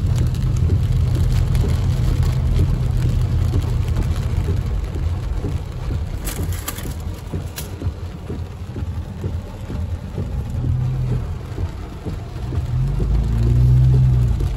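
Heavy rain falling on a car's roof and windshield, heard from inside the moving car over a steady low engine and road hum. About a second before the end, a windshield wiper sweeps across the glass.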